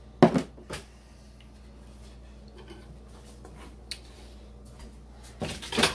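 A glass bowl set down on a countertop with a sharp knock, followed half a second later by a lighter knock; then quiet room tone, with a short rustling noise near the end.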